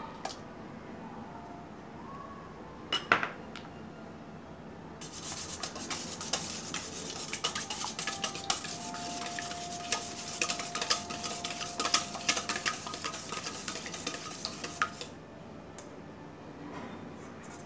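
Wire whisk beating eggs in a stainless steel bowl: a fast, dense rattle of the wires against the metal starts about five seconds in, runs for about ten seconds, then stops. Before it there are a couple of sharp clinks on the bowl, the loudest about three seconds in.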